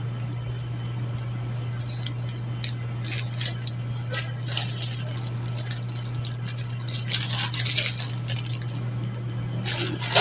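Thin plastic packaging bags crinkling and rustling as they are handled, in irregular bursts, over a steady low hum.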